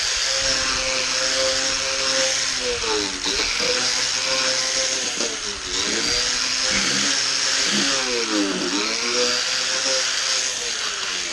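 Power tool running a wire brush against a metal bracket, its motor hum dropping in pitch and recovering about three times as the brush is pressed into the metal, over a steady scratchy hiss. This is the bracket being cleaned up before painting.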